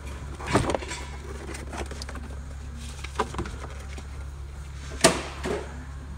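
Several clicks and knocks of plastic dashboard trim being handled as the glove box is taken out, the sharpest about five seconds in, over a steady low hum of workshop noise.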